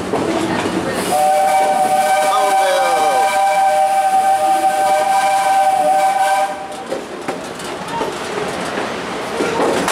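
Steam locomotive's whistle blowing one long chord of several tones at once, starting about a second in and stopping after about five and a half seconds, over the rumble and clatter of the moving train.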